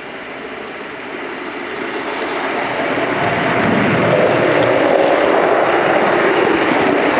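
Gauge 1 Accucraft M6 gas-fired live steam locomotive running toward the microphone with a steady rushing noise that grows louder over the first four seconds, then holds steady.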